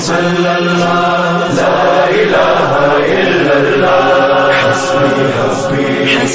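Sung devotional chanting of a hamd: voices carrying a slow, drawn-out melody over a steady low hum.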